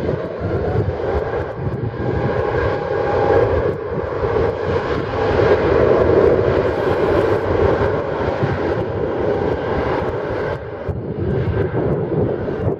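Airbus A350-1000's Rolls-Royce Trent XWB-97 turbofans at high thrust on the takeoff roll: a loud jet roar with a steady whine, swelling to its loudest about six seconds in as the aircraft passes, then easing slightly.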